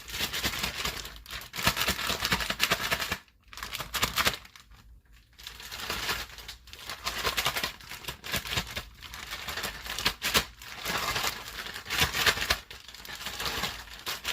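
Plastic Ziploc bag crinkling and rustling in uneven bouts as chicken pieces are shaken inside it in flour, with two brief pauses a few seconds in.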